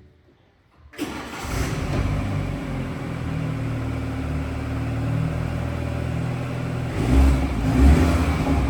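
BMW 430i F36's 2.0-litre turbocharged four-cylinder starts about a second in and runs through its exhaust, with the exhaust flap valve held open. Near the end it is revved in a few uneven surges and grows louder.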